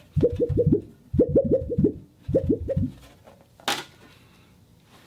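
A plastic sheet buckling and popping for foley, in three quick runs of four or five short pops each. About three and a half seconds in comes one sharper, crackling snap.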